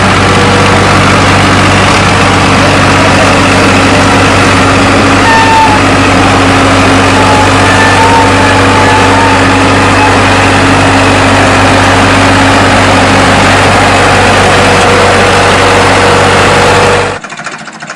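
Tractor diesel engine running loud and steady at constant revs, pulling a loaded trailer up out of a trench. It cuts off abruptly near the end.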